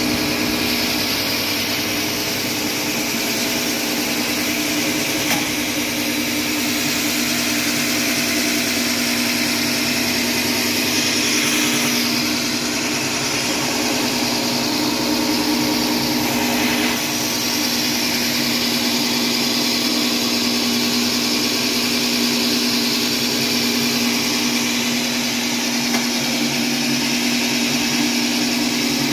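Passi PLM-003 electric reel lawn mower running steadily, its motor giving a constant hum over the whirr of the spinning cutting cylinder as it mows grass.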